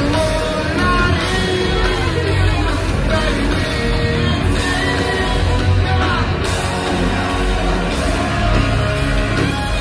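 Live heavy metal band playing at full volume, with a singer's amplified lead vocal held over drums and electric guitar.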